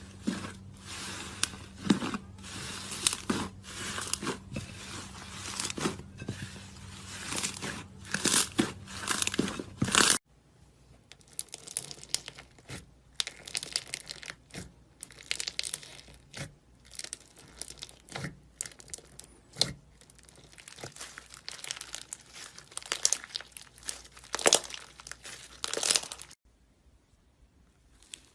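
Slime being squeezed and worked by hand, a steady run of small wet crackles and pops. About ten seconds in the sound cuts abruptly to a quieter, sparser take of the same crackling.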